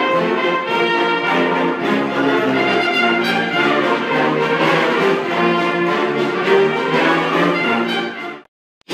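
Concert band of woodwinds and brass playing sustained chords of a piece, heard from the audience; the music cuts off abruptly a little before the end.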